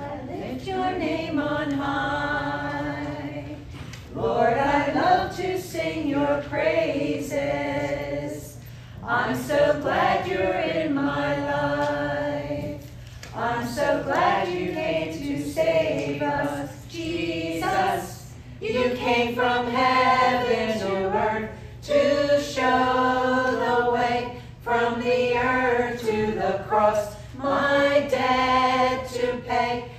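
Congregation singing a hymn together, in sung lines of a few seconds with short breaks between them, over a steady low hum.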